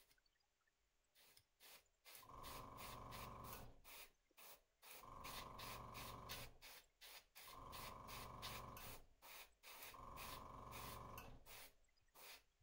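Airbrush spraying paint in four faint bursts, each about a second and a half long, with a steady hiss and hum in each.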